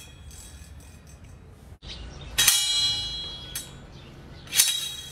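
Steel blades of a homemade two-blade hand saw clanging twice, about two seconds apart. Each strike rings on briefly, the first for about a second.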